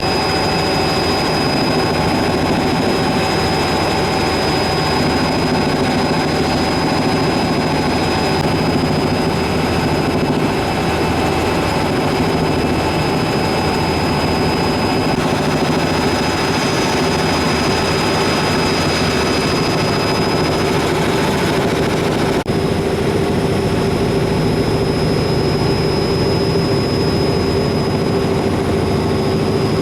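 Helicopter cabin noise: the engine and rotor running steadily and loudly, a steady high whine over a fast low thrum. There is a brief dropout about two-thirds of the way in.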